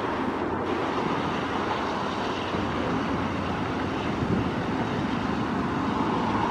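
Canadian Pacific diesel freight locomotives running steadily as the train approaches.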